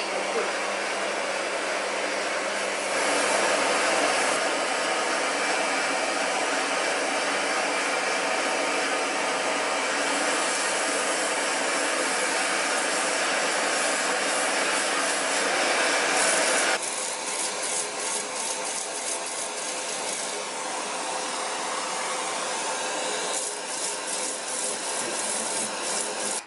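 A wooden tobacco pipe being power-sanded, with a steady rasping hiss of wood on abrasive as the shank is pressed against a narrow belt sander. About 17 s in the sound drops a little and turns rougher and more uneven as the pipe bowl is worked against a motor-driven sanding disc.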